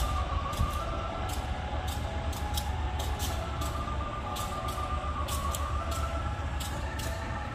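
Diesel train engine idling at a standstill: a steady low rumble with faint wavering tones above it, and irregular sharp clicks throughout.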